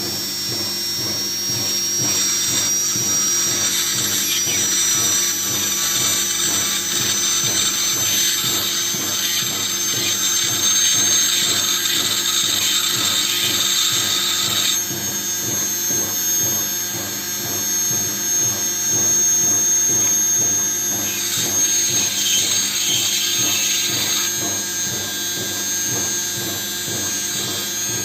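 Washing machine's brushed universal motor spinning steadily at about 800 rpm with a thin high whine, while a fine-grit stone grinds its commutator. The grinding adds a scratchy hiss for most of the first half and again briefly later. This is the resurfacing of an unevenly worn commutator to stop brush sparking.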